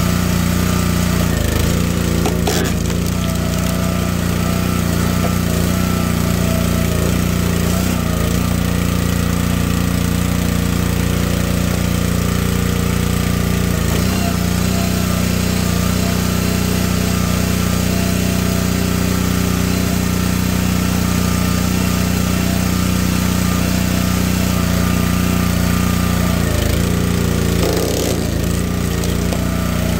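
Gravely 22-ton log splitter's small gas engine running steadily, its pitch dipping briefly several times as the hydraulic ram works under load, with a few sharp cracks as the ash rounds split.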